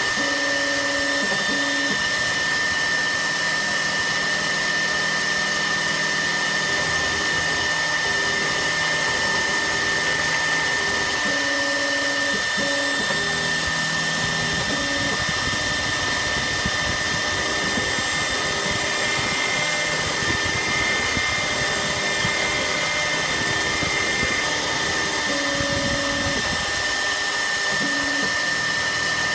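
ShopBot desktop CNC router running a small carbide end mill through 7075 aluminium plate: a steady high spindle whine over a loud cutting noise. Lower tones shift in pitch in steps and start and stop as the machine moves along its cutting path.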